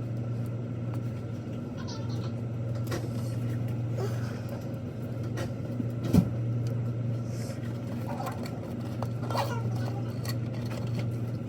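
Steady low drone of a car's engine and road noise heard from inside the cabin while driving, with a single sharp knock about six seconds in.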